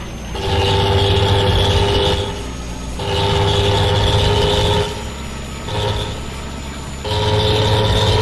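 A loud vehicle horn blown in long steady blasts of about two seconds each, with short gaps and one brief blip between them, several held tones together over a low growl.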